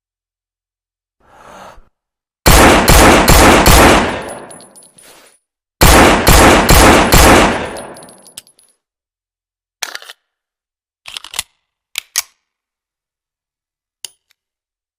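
Colt M1911 .45 pistol fired rapidly in two strings of about five or six shots each, the reports ringing out after each string. A few short metallic clicks of the gun being handled follow.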